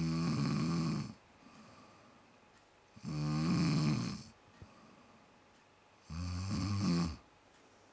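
Snoring: three snores about three seconds apart, each lasting about a second.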